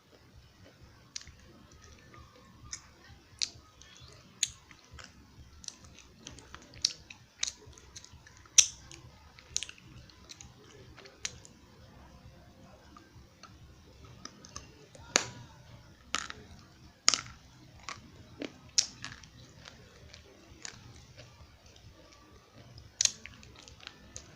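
Crunchy eko clay being bitten and chewed close to the microphone: sharp, irregular crunches and clicks, the loudest about a third of the way in and a few more in the middle.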